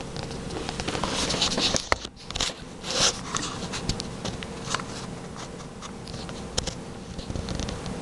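Rustling and clicking of a hand-held camera being handled and moved, heaviest in the first three seconds, over a steady faint hum.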